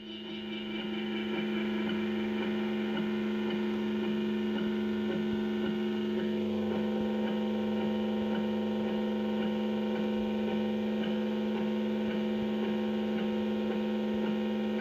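A steady, droning hum of several held tones, fading in over the first second or two and then holding level.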